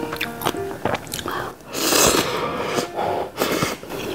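Close-up eating sounds of instant ramen noodles: a long, loud slurp about two seconds in, with chewing and small clicks around it.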